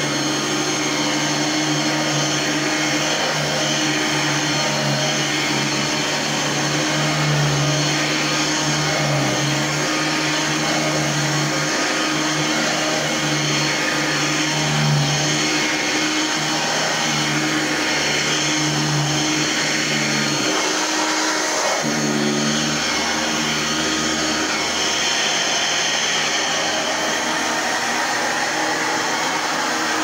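Singer SST-315 upright vacuum cleaner's 6.2-amp motor running steadily while it is pushed back and forth over carpet, its hum swelling and easing with the strokes. The low hum briefly drops out about two-thirds of the way in.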